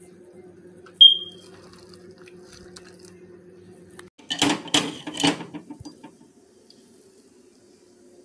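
A steady low electrical hum, cut by one short, sharp, high-pitched beep about a second in. From about four seconds in comes a couple of seconds of crisp rustling and crunching as shredded cabbage is handled and piled onto a plate.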